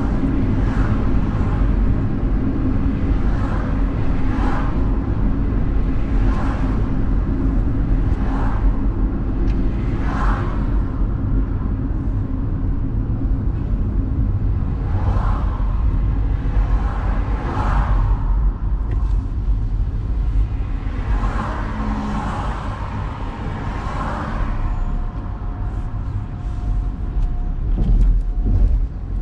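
Road noise of a moving car heard from inside the cabin: a steady low rumble of engine and tyres, with repeated swells of passing traffic every second or two.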